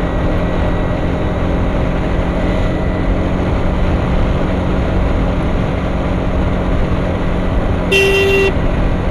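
Wind rush over the motorcycle's Bajaj NS200 single-cylinder engine running steadily at road speed, then about eight seconds in a horn beeps once for about half a second as a car pulls out in front.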